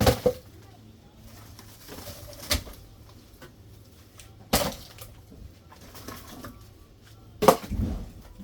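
Firewood logs knocking as they are set down and stacked: four sharp wooden knocks two to three seconds apart, the last the loudest with a short rumbling tail.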